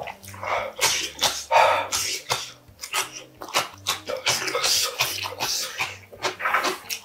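A man huffing and puffing hard through an open mouth, in irregular gusts, as he copes with the chili burn of extra-spicy Korean ramen.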